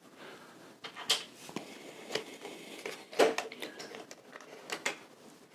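Small metal and plastic items being handled and set down on a hard surface: a scattering of light clicks and taps, the sharpest about a second in and about three seconds in.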